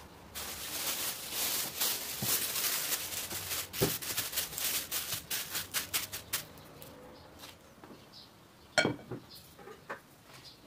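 Clear plastic film crinkling and rustling as it is spread over balls of dough on a wooden table, with a dull thump partway through. Near the end, a single sharp knock.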